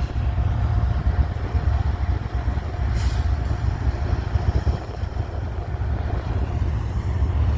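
Steady low vehicle rumble, with a brief hiss about three seconds in.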